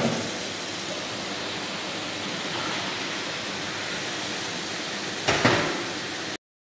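Steady hiss, with two brief knocks: one at the start and one about five seconds in.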